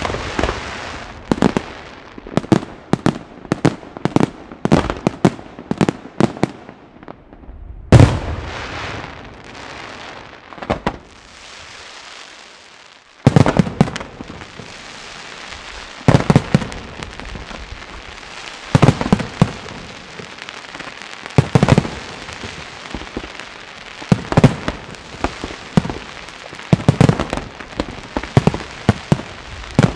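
Fireworks display: aerial shells bursting in quick succession, many sharp bangs over a constant crackle. A quieter lull comes about a third of the way in, then the barrage comes back suddenly and loudly.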